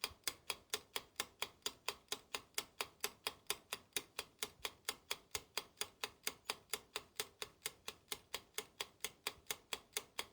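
Clock-style ticking, a steady run of sharp ticks at about four a second that stops abruptly, typical of a quiz countdown-timer sound effect.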